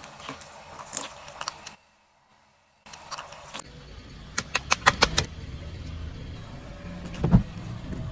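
A car tyre slowly rolling over small objects and crushing them, with a low tyre rumble under clusters of sharp cracks and pops, the loudest crack about seven seconds in. A second of silence near the start splits it into separate crushes.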